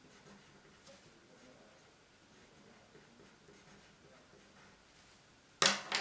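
Coloured pencil scratching faintly on paper as a word is written, then a sharp knock near the end as the pencil is set down on the table.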